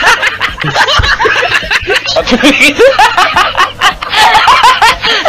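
Laughter from several voices at once, short chuckles and snickers overlapping like a laugh track, right after a joke's punchline.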